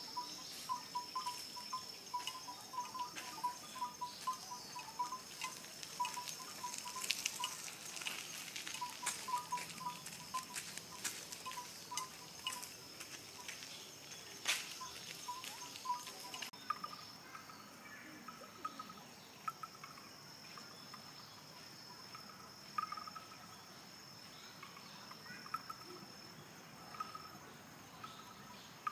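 Hollow bamboo knocking and clacking in irregular, scattered strikes, over a steady high insect trill. A rapid chirping runs through roughly the first half, and the sound changes abruptly about halfway through.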